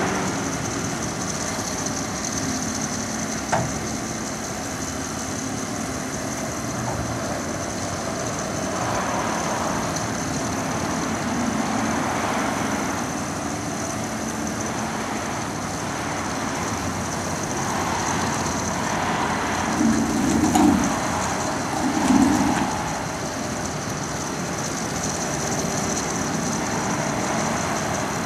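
A motor running steadily. There are two louder low thuds about two-thirds of the way through.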